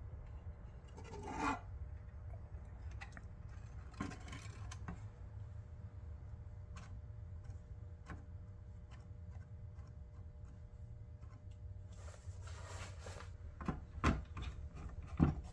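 Scattered light rubbing and tapping from parts being handled on a workbench, over a steady low hum. The handling sounds come a few at a time and grow busier near the end.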